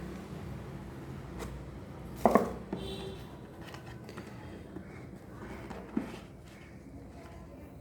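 Handling of a phone box and its packaging: light rustling with a few sharp knocks, the loudest about two seconds in.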